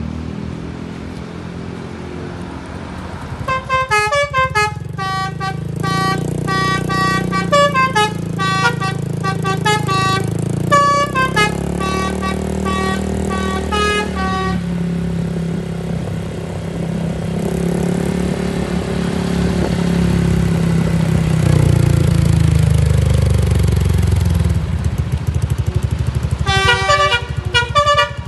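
Bus's basuri telolet horn playing a fast tune of short notes, in two spells: from about three seconds in to about fourteen seconds, and again near the end. The bus engine runs steadily underneath.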